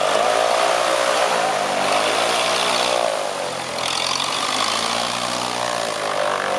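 Engine of a large scale-model biplane running on the ground with its propeller turning, the pitch rising and falling several times as the throttle is opened and eased back.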